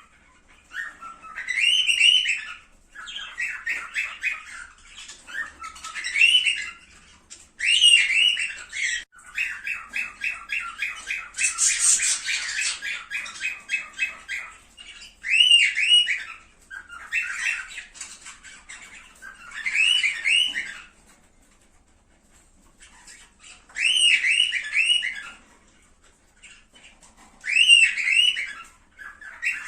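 Cockatiels calling and chattering: short rising whistled calls come in bursts every couple of seconds between fast chattering trills, with a harsher screech about twelve seconds in. The calling pauses briefly about two-thirds of the way through.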